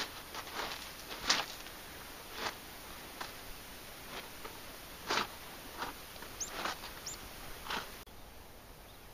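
Footsteps on sand and pebbles, irregular and about one a second, with two short high chirps a little after the middle; the steps stop near the end, leaving a faint hiss.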